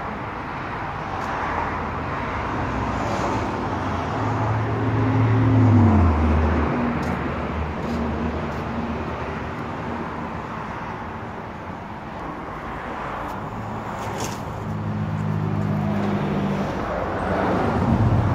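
A vehicle engine idling steadily, with a low hum that drops in pitch about six seconds in and grows stronger again near the end, and a few faint clicks.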